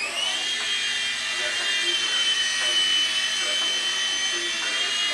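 Blade mSR micro RC helicopter's electric motor and rotor giving a high-pitched whine, rising slightly as it lifts off, then holding steady while it hovers.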